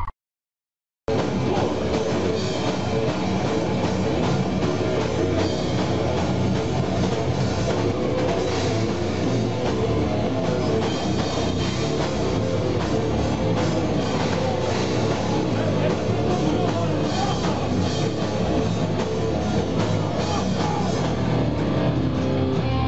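Live heavy metal band playing with drum kit and guitars. The music starts abruptly about a second in, after a brief silence.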